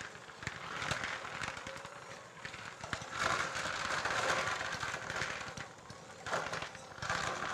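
Chocolate chips being stirred into stiff cookie dough in a mixing bowl: irregular scraping and clattering that rises in swells, about a second in, from three to five seconds, and again near the end. The noise is loud enough to be likened to a front-end loader.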